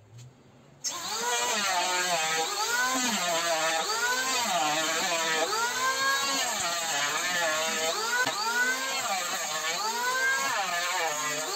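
Electric hand planer shaving a wooden board. It starts suddenly about a second in, and its motor pitch dips and recovers about once a second as it cuts.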